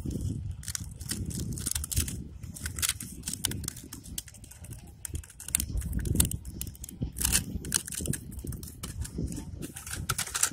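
Thin plastic of a cut plastic bottle crackling and clicking irregularly as it is squeezed and worked by hand, over a low rumble.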